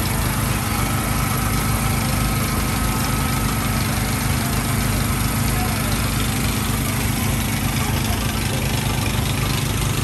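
Boat engine running steadily at a constant pitch, with a steady hiss over it.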